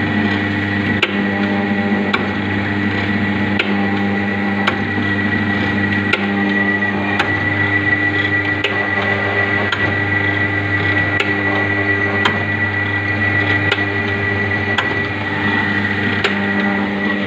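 Powder packing machine running: a steady electrical hum with a sharp click a little more than once a second as its roller drive's clutch-brake cycles.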